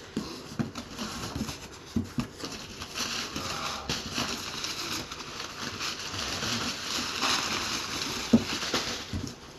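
Packaging being handled: rustling and crinkling, with scattered light knocks of parts and cardboard, busiest from about three seconds in until shortly before the end.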